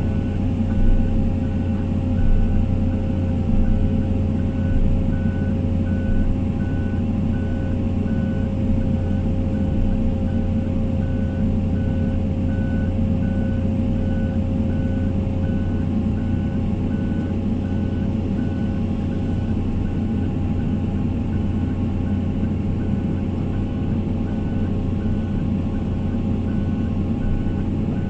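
Excavator's diesel engine running steadily, with a short high-pitched alarm beep repeating evenly about twice a second.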